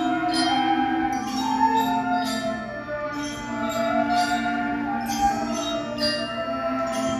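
A beginning school concert band of flutes, clarinets and saxophones playing a slow pavane: held chords that change every second or two, with ringing struck notes on a steady pulse above them.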